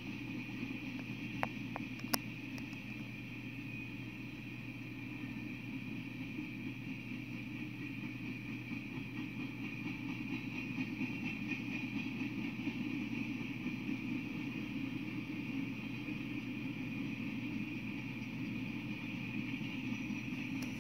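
Freight train cars rolling past on the rails: a steady rumble of wheels and couplings, with two sharp clicks near the start.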